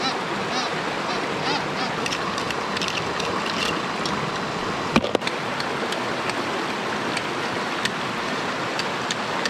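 Steady rush of running water, with a few faint high chirps in the first few seconds and one sharp click about five seconds in.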